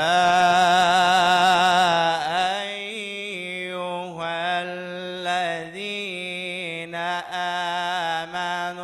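A man's solo Quran recitation in the melodic mujawwad style: one long, loud held note with vibrato, then the voice drops and winds through ornamented runs on a drawn-out syllable.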